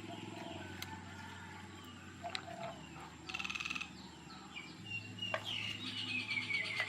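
Birds chirping and calling, a string of short falling chirps, with a brief buzzy rattling call about three seconds in.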